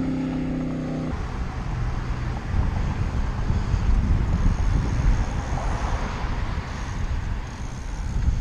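Wind rushing over the microphone and road noise while riding a bicycle, gusting unevenly. A steady hum of several pitches stops about a second in.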